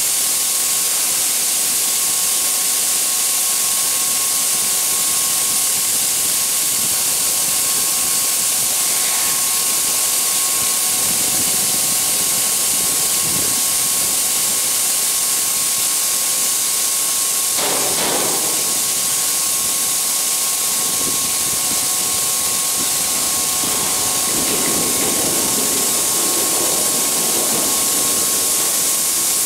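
Grain pouring steadily out of the open bottom-discharge doors of a grain train's hopper wagon into an unloading pit: a continuous, even hiss. A faint steady whine runs underneath.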